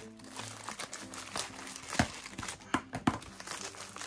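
Plastic wrapping crinkling as hands work it loose from a wooden folding fan, with a few sharper crackles.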